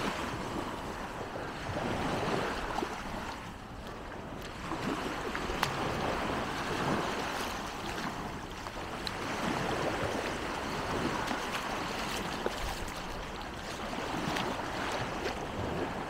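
Small waves washing onto a sandy shore, a steady wash of surf that swells and fades every few seconds.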